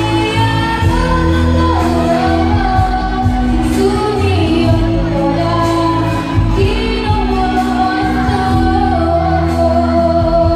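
A young woman singing into a handheld microphone over amplified backing music in a large hall, holding long notes that bend in pitch.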